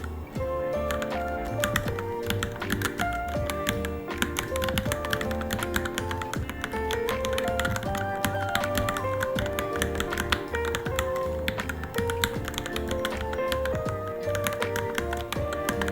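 Fast typing on a Varmilo Minilo mechanical keyboard, a dense run of key clicks, heard over background music with melodic notes and a pulsing bass beat.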